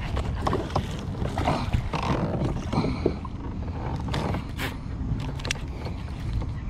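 Baitcasting reel being cranked to retrieve a lure, with irregular clicks and knocks of rod and reel handling over a steady low rumble.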